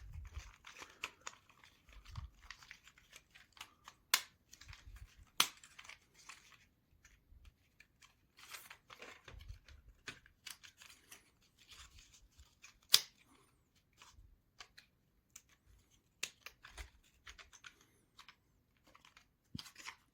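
Thin basswood model-kit pieces being handled and pressed into their slots: light scraping and rustling with a few sharp clicks, the loudest about 4, 5.5 and 13 seconds in.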